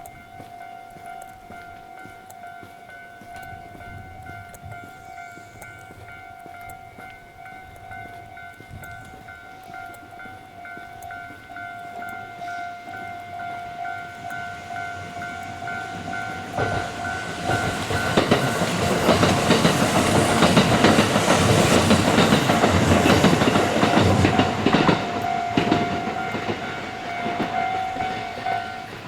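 Japanese level-crossing warning bell ringing in a rapid, steady repeat while a train approaches and passes over the crossing. The train's wheels clack over the rails and the train noise builds to its loudest past the middle, masking the bell, then fades near the end as the bell rings on.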